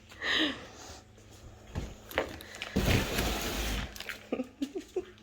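A woman laughing at herself, breathy and mostly unvoiced, with a loud breathy burst about three seconds in and a few short voiced chuckles near the end.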